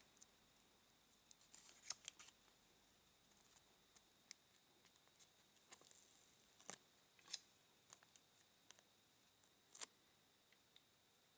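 Near silence broken by scattered faint, sharp clicks and crinkles of fingers handling a small printed sticker sheet and peeling a sticker off its backing. The loudest clicks come about two seconds in and near the end.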